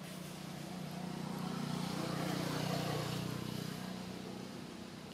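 A motor vehicle passing by. A low engine hum and a rushing noise grow louder, peak about halfway through, then fade away.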